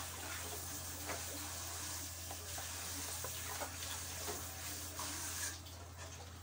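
Tap water running into a sink, a steady hiss with a few faint clinks, that stops about five and a half seconds in.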